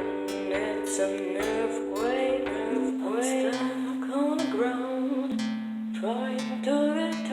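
Instrumental music: plucked guitar notes over sustained bass tones that step down in pitch about every two to three seconds.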